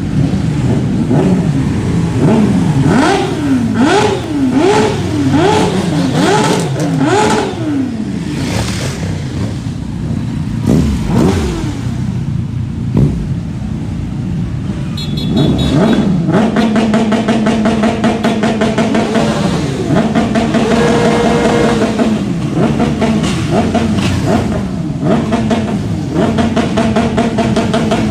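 High-capacity motorcycle engines being revved: a quick series of rev blips rising and falling about once a second, then from about halfway an engine held at a steady speed between further revs.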